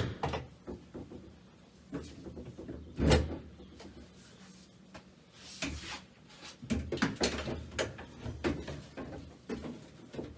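Scattered knocks and clunks of tools and boxes being handled and set down, with a sharp knock about three seconds in and quicker clatter in the second half.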